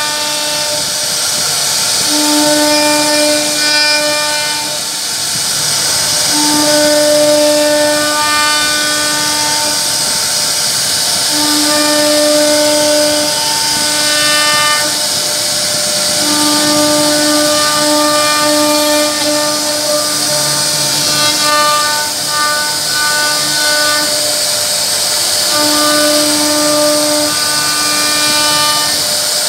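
CNC router spindle cutting into a wooden board, a steady high hiss from the cutter, with a pitched whine that keeps switching on and off every second or two as the machine moves through the carving.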